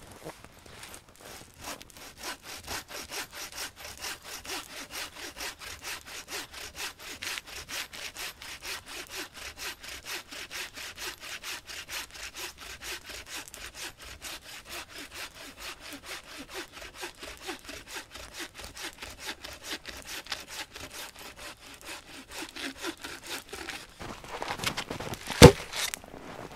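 Hand bow saw cutting through a log, steady back-and-forth strokes in an even rhythm. Near the end the sawing stops and a single sharp wooden knock stands out.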